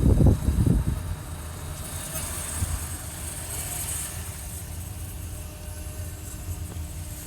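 Toyota Corolla (E160/E170) rolling, a low steady rumble that drops sharply about a second in and then runs quieter, with faint high-pitched noise over it. The car is being recorded for a squeak when the right wheel turns, which goes away with the wheel taken off.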